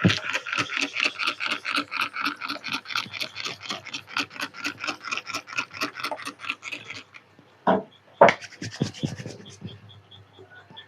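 Hands rubbing and scratching quickly over hair and scalp in a head massage, in an even run of about seven strokes a second that stops about seven seconds in. It is followed by two louder single strokes and a few fainter ones.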